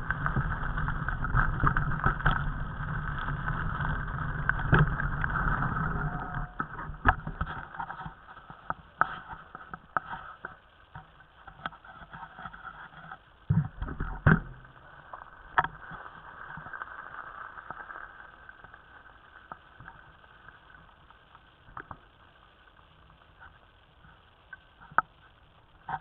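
Mountain bike riding over a rocky trail: a steady rushing noise with low rumble fades after about six seconds, then scattered knocks and rattles from the bike over stones, with two heavier thumps about fourteen seconds in.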